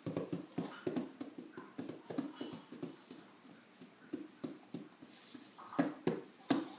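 Hand drumming: irregular, fast thumps of hands striking a drum, several a second, a little louder near the end.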